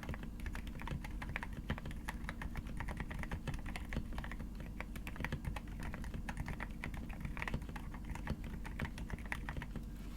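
Steady, fast typing on a mechanical keyboard fitted with Akko Haze Pink silent linear switches: a continuous stream of muted keystrokes, several per second.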